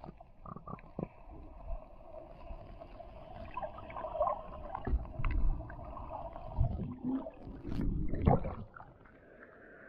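Muffled underwater sound of shallow seawater heard through a submerged camera: irregular low thumps and gurgling swishes with scattered clicks. It is loudest about five and eight seconds in and dies down near the end.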